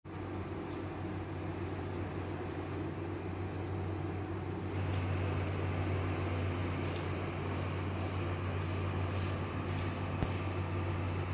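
Steady low mechanical hum over a noisy background, a little louder from about five seconds in, with a few faint clicks in the second half.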